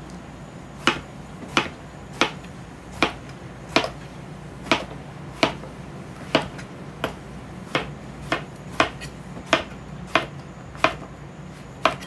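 Chef's knife slicing eggplant into rounds on a wooden cutting board: a sharp knock as the blade meets the board with each cut, about sixteen cuts at an even pace of roughly one every 0.7 seconds.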